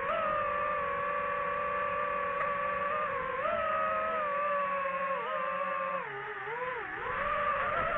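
DJI FPV drone's motors and propellers whining at a steady pitch, which dips and climbs back a few times, most deeply about six seconds in, as the throttle changes.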